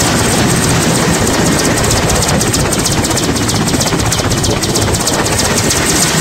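A helicopter running on the ground: a loud, steady engine and rotor noise with a fast, even chopping from the blades.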